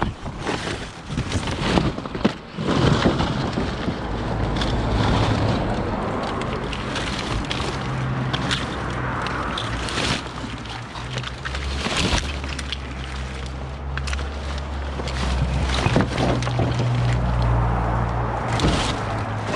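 Scrap, including copper cable, being pulled from a dumped pile and handled: repeated knocks, clatters and rustles, over a low steady hum.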